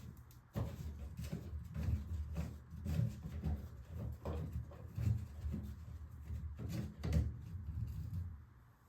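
Irregular knocks and clunks of handling and bumping against a wooden vanity cabinet while its plumbing is being disconnected.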